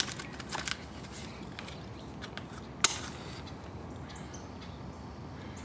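Wind blowing on the microphone, with small rustles and clicks from hands working a paper matchbook and net line close by, and one sharp click about three seconds in.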